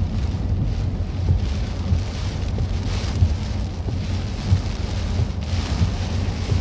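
Heavy tropical-storm rain and wind on a moving car, heard from inside the cabin. A steady low rumble runs under a hiss of rain that swells and fades every couple of seconds.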